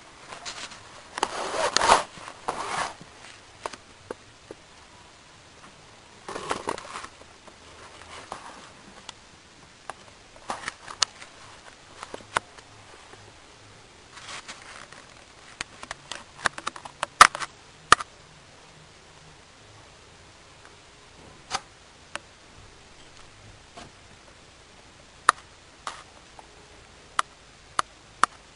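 Handling noises: a few short bursts of rustling and scraping, with scattered sharp clicks, some of them loud.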